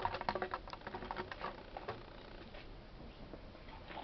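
A quick run of light taps and scuffs right at the microphone through the first two seconds, from a cat brushing against and nudging a camera set on the ground. The sound then fades to faint background.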